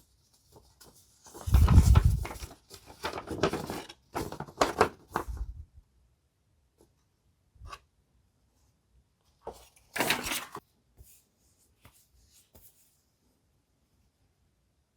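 Hands handling small parts and packaging of a model train set: a run of knocks and rustles in the first few seconds, the loudest a dull thump about two seconds in, a louder scrape or rustle about ten seconds in, and scattered small clicks between.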